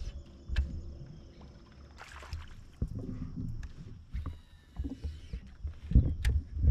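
Irregular low knocks and bumps from a plastic fishing kayak and its gear on the water, with a few sharp clicks as a fishing rod and reel are handled. The loudest knocks come about six seconds in, as a cast is made.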